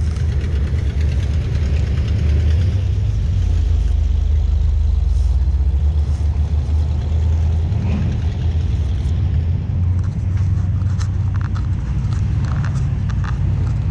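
A motor vehicle engine running steadily, heard as a continuous low rumble.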